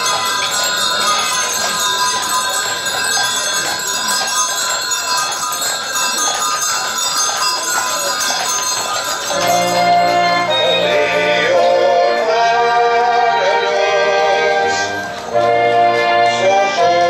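Bells ringing, many overlapping ringing tones. About halfway through, band music with sustained notes and a steady bass line starts up over them.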